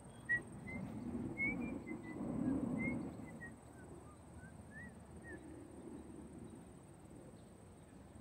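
A songbird calling in a run of short, quick chirps for the first five seconds or so, over a steady high-pitched whine and a low rumbling noise. A single sharp click comes about a third of a second in.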